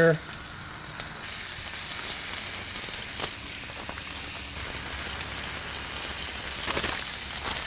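Thin-sliced pancetta frying on a hot flat-top griddle: a steady sizzle, with a couple of soft taps.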